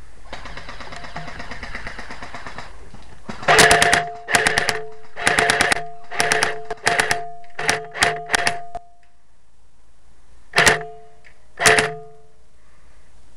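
Airsoft M4 rifle firing: a longer rattling burst, then about eight short bursts in quick succession, each carrying a steady whine, and two more single short bursts near the end.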